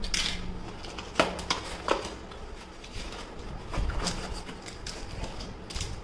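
A few sharp, scattered clicks and taps over a low background rumble.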